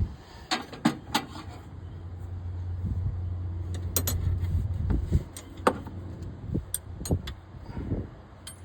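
Scattered sharp clicks and metallic knocks from hands and tools working around the loader's frame. A low steady hum runs underneath and fades out about five seconds in.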